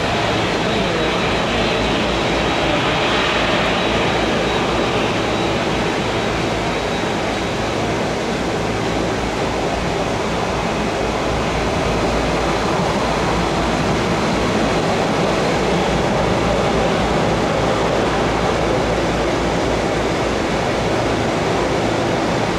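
Steady rushing jet noise from a Boeing 737-700's CFM56 engines at taxi idle, holding an even level throughout.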